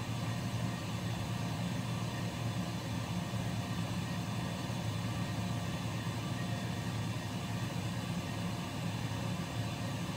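Air compressor running with a steady low hum.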